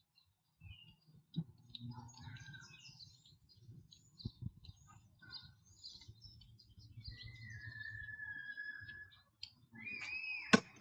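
Birds chirping with many short high calls and one long, slightly falling whistled note about seven seconds in, over a low rumble. A few sharp clicks, the loudest near the end.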